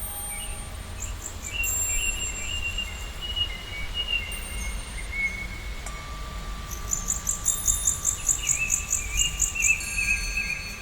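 Birdsong in a nature ambience: drawn-out whistled calls, and from about seven seconds in a rapid, high chirping trill at about eight notes a second, over a steady low rumble.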